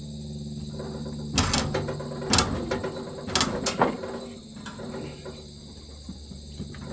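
Portable sawmill's engine running steadily, with about four sharp metallic knocks in the first half as the mill is worked.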